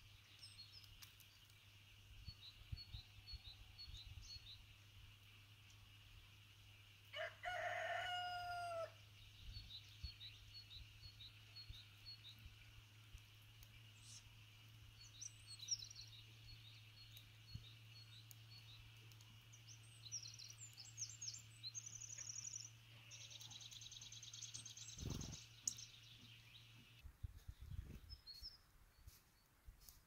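A rooster crows once, about seven seconds in: one drawn-out call, the loudest sound. Small birds chirp in repeated short high series throughout, with a denser twittering near the end.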